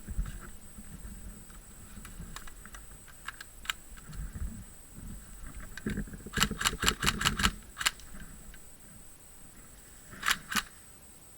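Airsoft guns firing: a quick run of about eight sharp shots about six seconds in, then two more near the end, with scattered single cracks earlier, over low rustling movement.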